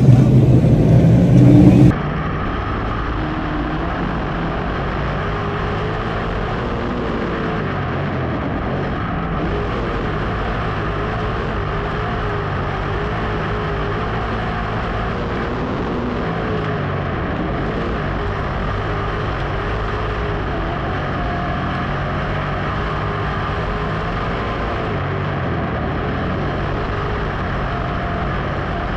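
A few seconds of loud voice, then from about two seconds in a dirt-track modified race car's V8 engine heard from the in-car camera, lapping at speed, its pitch rising and falling over and over as it accelerates down the straights and lifts for the turns.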